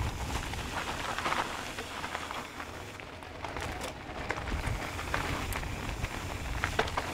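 Mountain bike riding down a dirt trail: tyres rolling and crunching over the ground with scattered clicks and knocks, and wind rumbling on the microphone.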